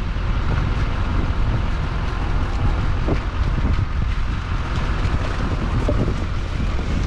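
A vehicle running with a steady low rumble, with wind noise on the microphone.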